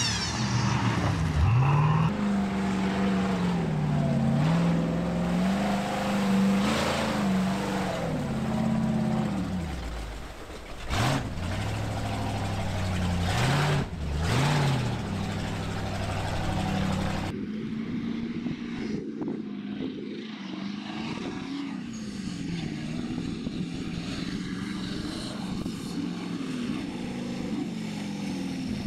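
Off-road race vehicle engines revving hard, the pitch rising and falling again and again as the drivers work the throttle. About 17 seconds in the sound switches abruptly to a fainter, more muffled engine that is still revving up and down.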